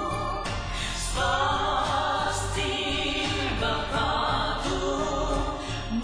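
Background music with sung vocals and sustained held notes.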